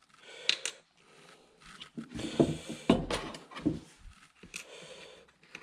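Clicks and knocks of small AR-15 lower receiver parts being handled, with a sharp click about half a second in and a cluster of knocks through the middle.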